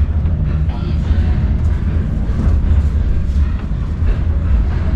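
Steady low rumble of a passenger train, with faint voices in the background.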